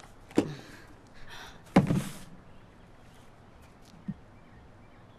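A sharp knock, then a louder thud with a short ring-out just under two seconds in, and a faint click near the end, against quiet room tone.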